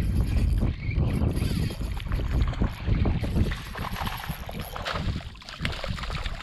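Wind buffeting the microphone in a heavy low rumble, with water splashing as a hooked redfish thrashes at the surface.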